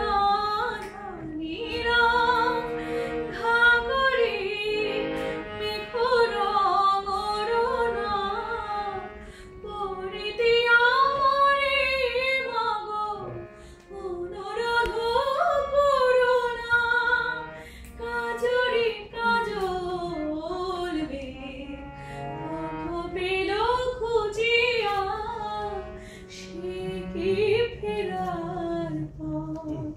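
A woman singing a slow melody with ornamented, gliding notes in long phrases, accompanied by a harmonium holding steady tones beneath her voice.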